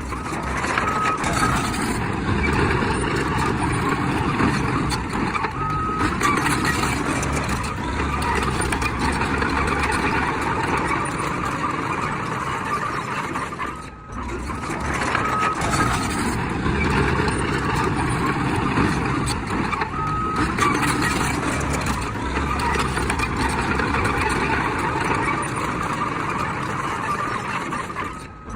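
Heavy diesel earthmoving machinery running steadily under load, with a short reversing-alarm beep a few times. The noise dips briefly about halfway through.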